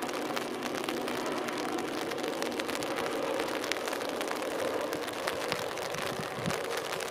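LNER InterCity 225 electric express train running across a stone viaduct, heard from a distance as a steady rumble with scattered light ticks.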